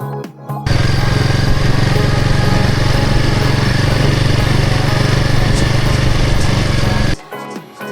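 Hero Hunk 160R 4V's single-cylinder engine running steadily while riding, loud and even, cutting in shortly after the start and cutting off near the end, with background music on either side.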